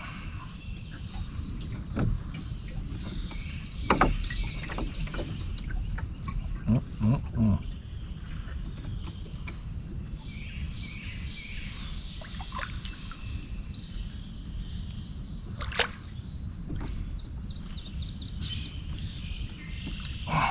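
A bird singing a rapid series of high notes, heard two or three times, over a steady low rumble. Several knocks cut in, three in quick succession about seven seconds in and a sharp click near the middle of the second half.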